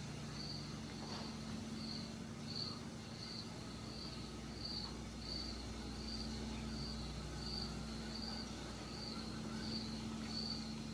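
A cricket chirping steadily, short high chirps repeating evenly about one and a half times a second, over a low steady hum.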